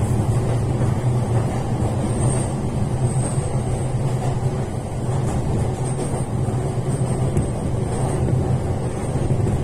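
Running noise of an Utsunomiya Line electric commuter train, heard from inside the carriage: a steady low rumble of the wheels on the rails.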